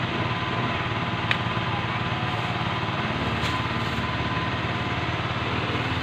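A small engine running steadily, an even drone that does not change, with a faint click about a second in.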